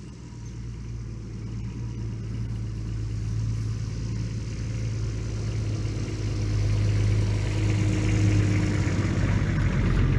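Diesel engine of a 1966 Ford F-250 running, steadily growing louder.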